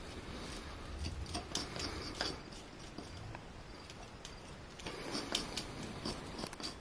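Hoof pick scraping and clicking against the underside of a horse's hind hoof as packed dirt is cleaned out, in short irregular strokes.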